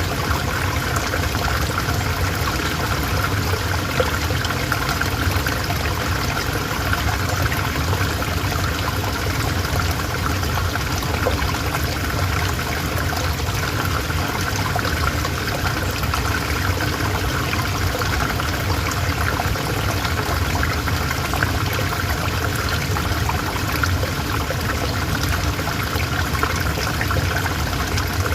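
River water flowing, a steady, even sound of running water.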